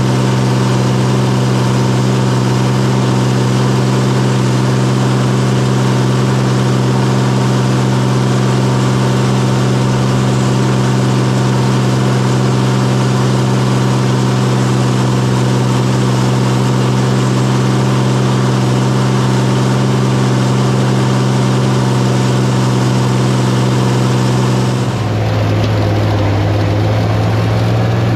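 Cockshutt 1955 tractor engine running steadily under load, pulling a New Holland discbine mower. Near the end the note drops slightly lower and slowly climbs back.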